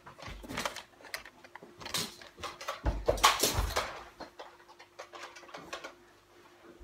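Scattered knocks, clicks and shuffling of children moving about a living room during a Nerf game, with a heavier thump and scuffle about three seconds in.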